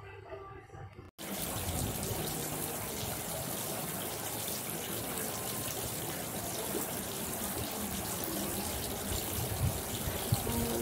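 Water splashing and trickling steadily from a tiered stone fountain, starting abruptly about a second in.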